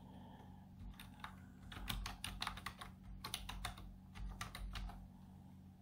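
Typing on a computer keyboard: a quick run of key clicks starting about a second in and stopping near the end, over a faint steady hum.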